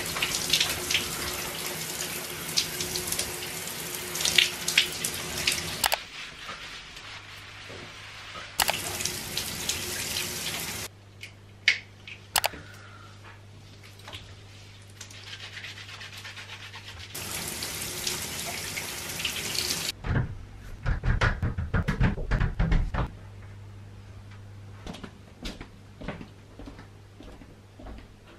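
Sink tap running and shut off three times, water splashing, with small knocks and clicks in between. A low rumbling follows for about three seconds near the end.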